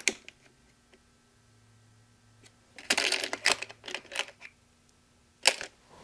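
Small hard parts being rummaged through and handled. There is a sharp click at the start, a cluster of quick clicks and rattles about three to four seconds in, and a single sharp click near the end.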